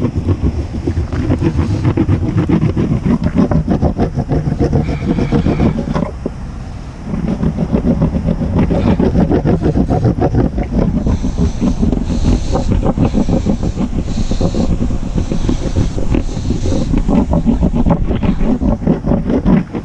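A bar of surf wax rubbed in quick strokes over a surfboard's deck close to the microphone, a steady run of scraping that pauses briefly about six seconds in.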